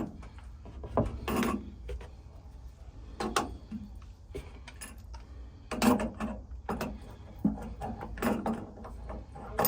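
Hand tools working on a water heater's valve fitting to remove it: irregular clicks, knocks and short scraping bursts.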